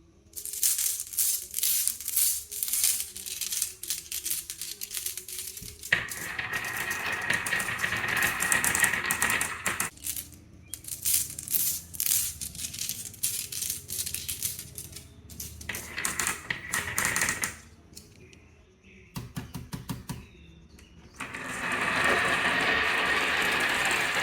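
Marbles clattering down a HABA wooden wave-slope marble run in runs of quick clicks, alternating with stretches of steady rolling noise. The longest rolling stretch comes near the end.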